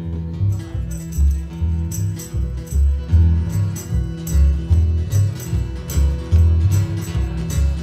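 Acoustic jug band playing an instrumental intro: guitar over a bass line of short low notes, with a jingling, tambourine-like percussion on a steady beat.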